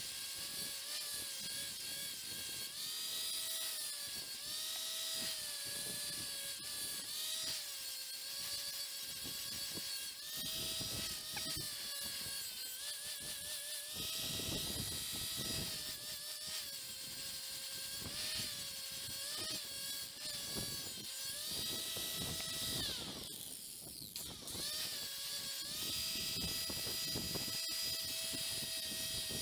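Electric angle grinder with a flat disc grinding a steel circular saw blade: a steady motor whine whose pitch sags each time the disc is pressed onto the steel, over a rough grinding noise. Near the end it winds down briefly, then runs again steadily with no load.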